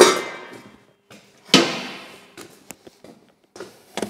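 Metal clanks in a workshop as a pressed-steel hubcap and tools are set down: two loud clanks, each ringing on and dying away over about a second, the second about a second and a half in. Light knocks and clicks follow near the end.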